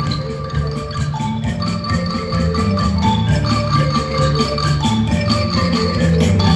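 Mallet percussion ensemble of xylophones and glockenspiels playing a lively piece, with many quick struck notes over a steady low bass line.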